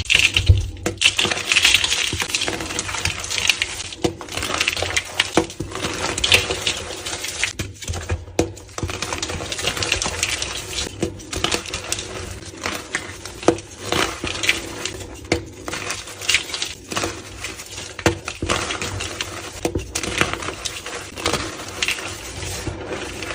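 Blue gym chalk blocks being crushed, crunching and crumbling with a dense, irregular run of small sharp cracks.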